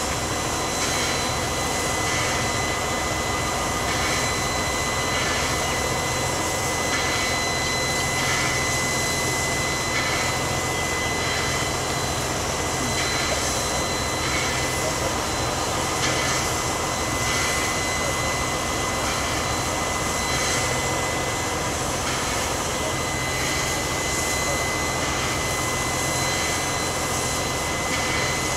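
Steady hissing roar from a standing steam locomotive and a running crane truck, with a high whistling tone held throughout and a low engine hum underneath.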